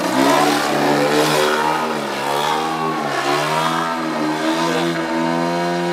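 Radio-controlled Extra 300 aerobatic model plane flying, its motor and propeller droning steadily, with the pitch dipping and rising in the middle as it manoeuvres.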